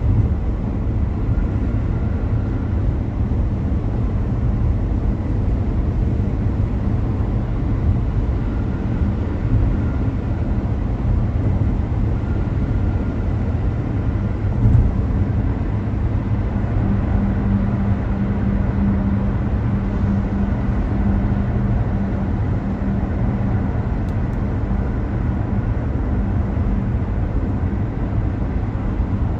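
A car driving, with a steady low rumble of engine and road noise. A humming drone grows stronger about halfway through, and there is a single light thump around the same point.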